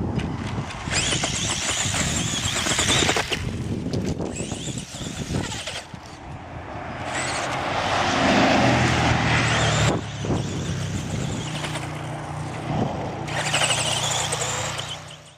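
Tamiya Super Hornet electric RC buggy driving and spinning its tyres, heard from a camera riding on the car: motor and gear whine with tyre scrabble, swelling and easing with the throttle.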